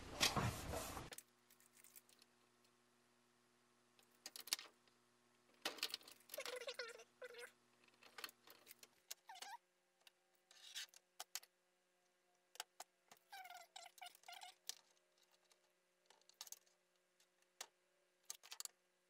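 Faint, scattered handling sounds as sticky notes are pressed onto a plastic fridge vent and a metal ruler and marker are worked over them: small clicks and rustles with a couple of short squeaky bursts.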